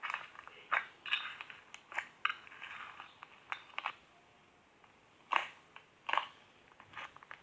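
Slime being squeezed and poked by hand, giving irregular sharp pops and crackles. They pause for a moment around the middle, then two louder pops come.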